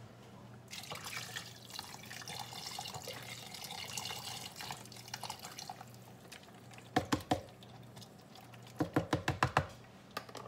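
Water poured from a container into the inner pot of an electric pressure cooker, running for about five seconds before stopping. Near the end come a few sharp clicks and then a quick run of taps.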